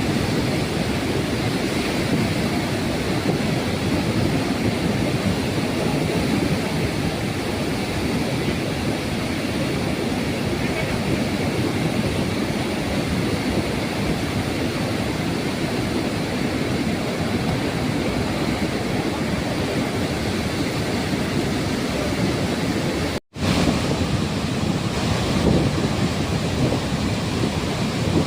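Flood water discharging through the lifted spillway gates of the Kadem Project dam: a loud, steady rush of water, broken once by a momentary dropout near the end.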